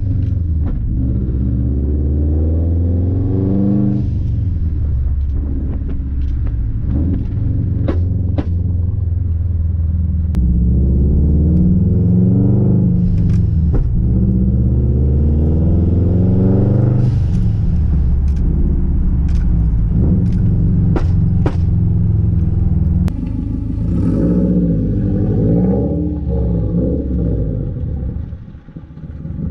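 2013 Subaru WRX's turbocharged 2.5-litre flat-four engine pulling hard through the gears, its revs rising and dropping with each shift. The GFB blow-off valve gives short sharp venting bursts between shifts. It is heard first from inside the cabin with the windows down, and near the end from outside as the car drives away.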